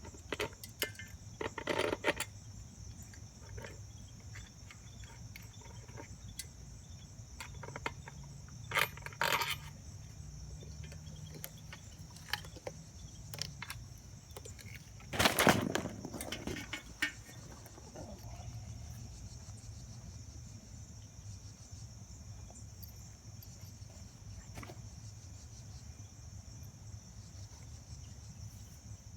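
Scattered metallic clinks and clatter of hand tools and bolts as a part is unbolted from a mini bike, the loudest a sharp clank about fifteen seconds in. A steady high chirring of crickets runs underneath.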